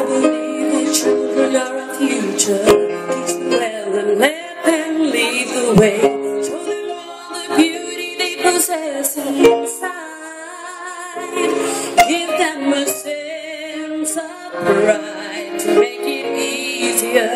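A woman singing live through a microphone over backing music of steady held chords, with vibrato on her long notes.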